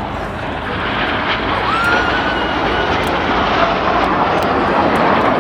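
Jet noise from the Red Arrows' BAE Hawk T1 jets, with their Adour turbofan engines, as the formation sections cross overhead. It grows steadily louder, and a faint whistle glides briefly about two seconds in.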